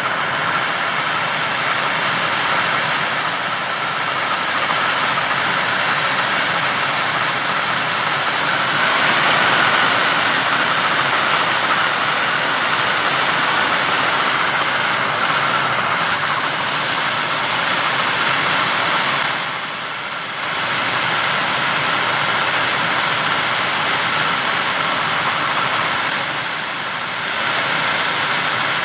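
Blowtorch flame burning with a steady hissing rush, played on copper until the metal melts. It dips briefly about twenty seconds in and again near the end.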